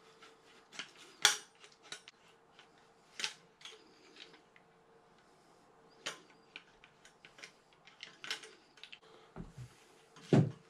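Rotary tubing cutter being worked back and forth around a thin brass drain overflow pipe: irregular metallic clicks and scrapes as the cutting wheel scores through. A heavier knock comes near the end, as the cut piece or the tool is set down.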